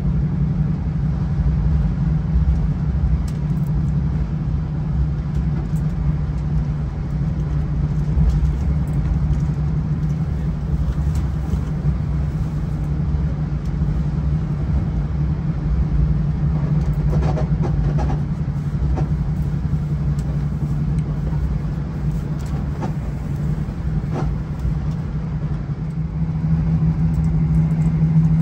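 XPT diesel train's engine running with a steady low drone. Near the end it rises slightly in pitch and gets louder, with a few faint clicks in between.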